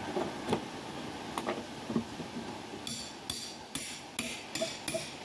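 A few sharp knocks on wood about a second apart, then a quick run of about six harsh scraping strokes.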